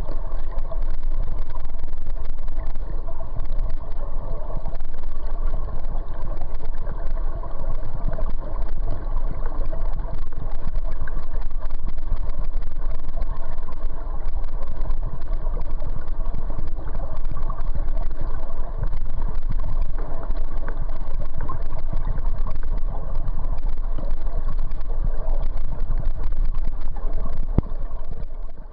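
Steady low rumble and rush of river current heard underwater by a submerged camera, muffled and dull, with no distinct events.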